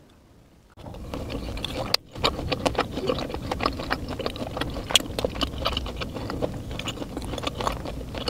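Fried tofu being chewed close to a clip-on microphone: dense wet mouth clicks and smacks over a low rumble. It starts about a second in, with a brief break near two seconds.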